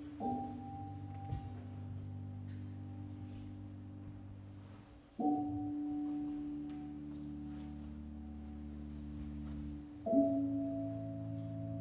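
Slow instrumental stage music: three ringing struck notes about five seconds apart, each sustained over a low held chord that shifts with each new note.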